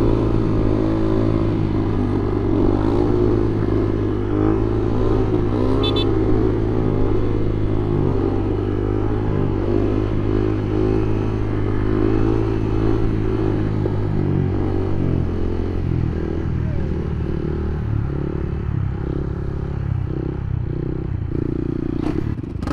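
Motorcycle engine running while riding, its pitch rising and falling with the throttle, with a brief click about six seconds in.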